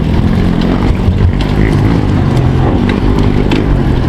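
Trail motorcycle on a dirt forest track: a steady low engine and riding rumble with scattered rattling clicks.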